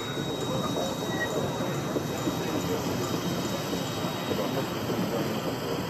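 Model railway train running along a layout's track: a steady rolling noise of its wheels on the rails, with a thin high tone in the first two seconds.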